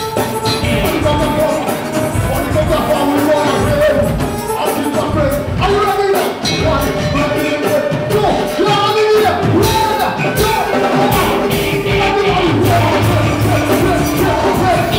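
Live gospel praise music: a man sings into a microphone over loud backing music with drums.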